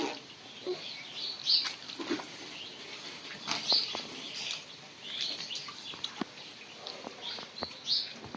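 Birds chirping, short calls repeating about once a second, with scattered light clicks and taps.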